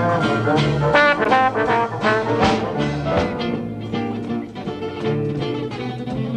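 Small swing jazz band playing live: trombone phrases over a rhythm section of piano, guitar, string bass and drums. About halfway through the horn drops out, leaving the rhythm section with the guitar.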